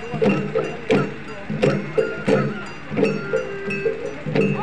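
Garo Wangala dance music: drums struck in a steady beat, about one stroke every 0.7 seconds, with ringing metallic gong tones held between the strokes.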